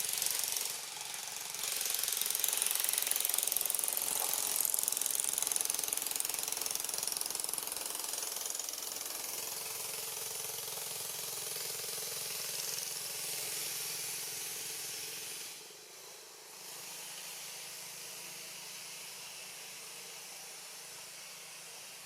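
Steady high-pitched hissing drone that dips briefly about a second in, then fades down and drops away for a moment around sixteen seconds in before carrying on quieter.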